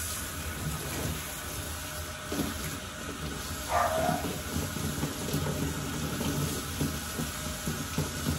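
Water spraying steadily from a hand-held grooming-tub nozzle turned low, a soft narrow spray running down over a French Bulldog's face and splashing into the tub. One brief sharper sound stands out about four seconds in.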